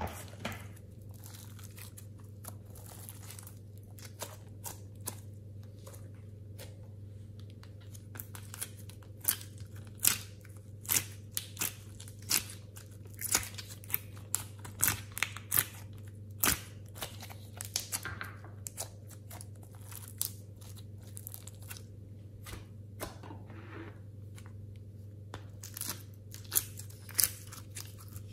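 Sticky slime and soft clay being squeezed by hand and peeled out of plastic molds, making irregular wet pops and crackles, thickest in the middle and again near the end.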